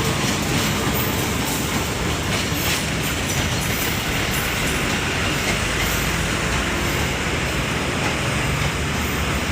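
A train running past at close range: a steady, loud rumble and rail noise, with a few sharp clicks in the first three seconds.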